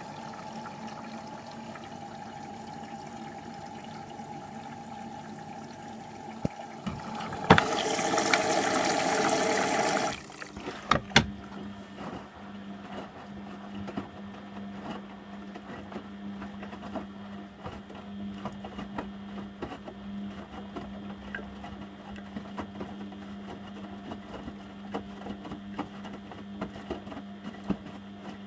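Beko washing machine early in a Cottons 60°C wash, taking in water. A steady hum gives way to a loud rush of water for about two and a half seconds that cuts off suddenly, followed by a few clicks. After that comes a steady low hum with light ticks as the machine runs on.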